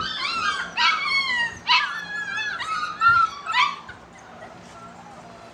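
A litter of American bully puppies whining and yipping, many high, sliding cries overlapping one another, which stop about four seconds in.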